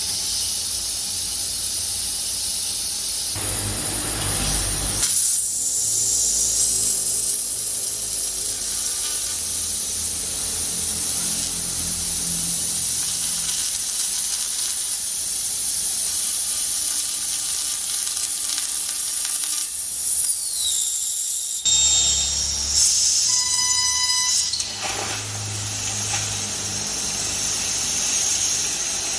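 High-power fiber laser cutting machine cutting steel plate, the assist gas jetting from the cutting head as a steady loud hiss over a low rumble, changing abruptly a few times.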